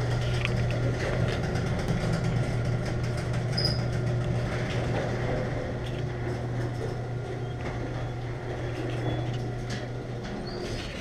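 Electric garage door opener running as the sectional garage door rolls up: a steady motor hum with clicking and rattling from the door, dying away near the end as the door finishes opening.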